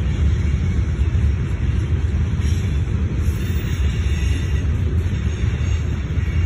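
Freight train of tank cars and covered hoppers rolling past on a far track: a steady low rumble with faint higher squeals of the wheels midway through.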